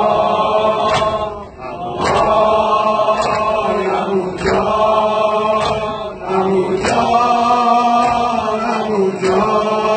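Men chanting a Persian noha in unison, with rhythmic chest-beating strikes (sineh-zani) about once a second keeping the beat.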